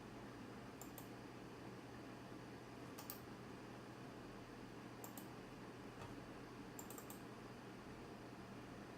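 Faint, sharp clicks in short groups of two or three, about every two seconds, over a steady low hum and hiss.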